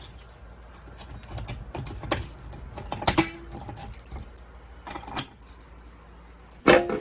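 Keys jangling with scattered sharp metallic clicks: a fire alarm pull station being handled and reset. A brief short tone sounds about three seconds in.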